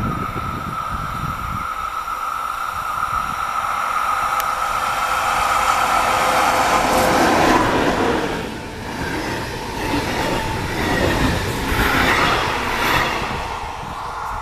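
Locomotive-hauled passenger train approaching and passing close by. A steady high whine grows louder over the first seven seconds or so. The coaches then rush past with wheel and rail noise swelling and falling several times before the train draws away.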